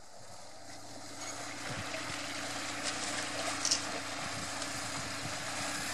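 Motorcycle engine running at a steady low pitch in a shallow river ford, over rushing water and wind noise; about halfway through, a short splash from someone wading.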